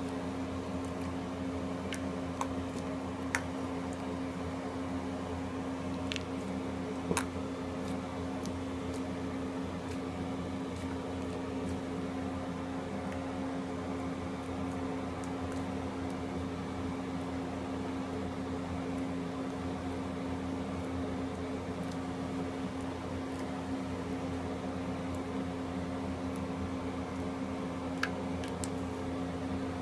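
A steady machine hum with a constant low tone, like a running fan or appliance, with a few faint sharp clicks scattered through it.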